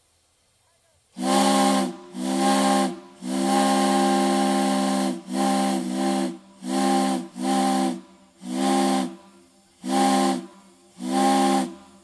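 Steam whistle blown in about ten blasts of irregular length, mostly short with one long blast about two seconds in, each a chord of several low tones over a loud rush of steam hiss.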